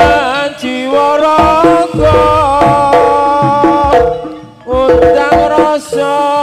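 Live jaranan music: a loud melody of held notes, some bending in pitch, over hand-drum strokes and low beats.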